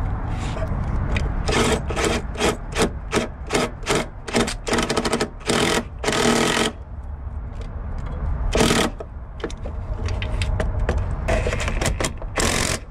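Ratchet wrench tightening the mounting bolts of a new starter motor, a run of short rasping strokes with a few longer ones and a brief pause partway through.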